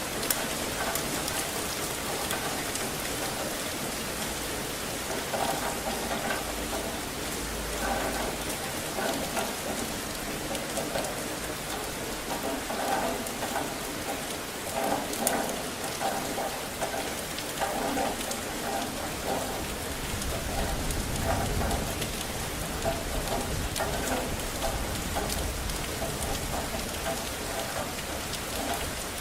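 Steady rain falling and splashing on hard surfaces, with a low rumble of distant thunder about two-thirds of the way through.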